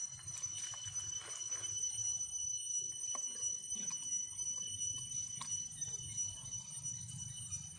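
Dry leaf litter rustling, with a handful of light clicks and snaps, as a baby macaque tugs at a thin stick on the forest floor. A steady high-pitched whine holds under it throughout.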